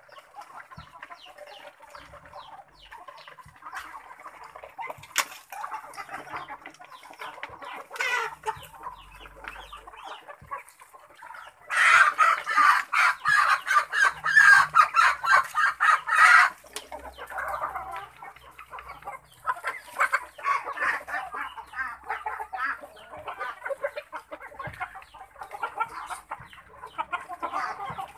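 A pen of poultry, mostly Muscovy ducks, calling in continual clucking chatter. About twelve seconds in, it swells into a loud burst of rapid calling for about five seconds, then settles back to steady chatter.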